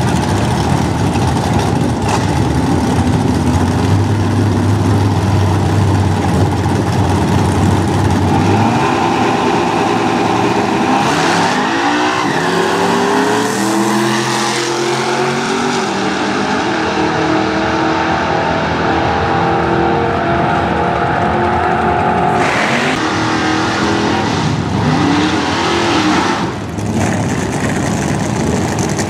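Drag racing cars' engines running loud and rough at the start line. From about nine seconds in the engine pitch climbs in several steps as a car launches and pulls away down the strip. A rumbling engine din carries on afterwards.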